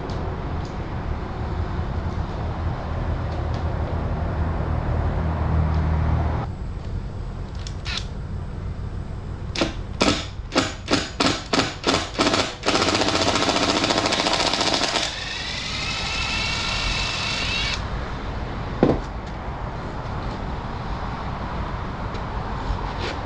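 Woodworking on timber pieces: a steady low rumble, then a run of sharp knocks at about three a second, then a loud hissing burst of power-tool noise followed by a quieter whine that stops, and a single knock a little later.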